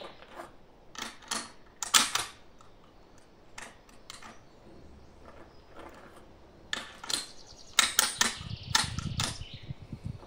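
Brass 8x57 cartridges clicking and clinking as they are taken from the box and handled to load the Mauser M48A rifle: a series of sharp metallic clicks, the loudest about two seconds in, more near the end with some rattling.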